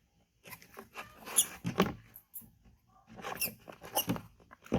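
A baby monkey's high squeaks in two short bouts.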